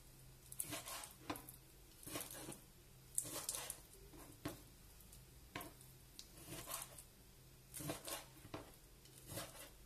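Kitchen knife slicing through raw chicken thigh on a plastic cutting board as the fat is trimmed off: a string of short, faint cuts and taps, roughly one a second.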